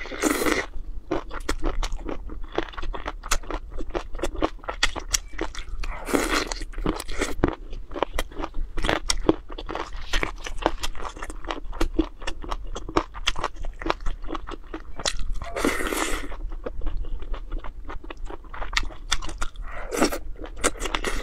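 Close-miked chewing of crunchy food, a dense run of short crisp crackles from the mouth, with a few longer, louder bursts of noise, the loudest near the middle.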